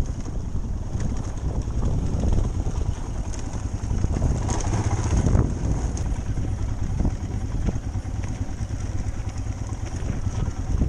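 Royal Enfield motorcycle engine running at low speed while riding down a rocky dirt track, with many short knocks and rattles as the bike goes over stones.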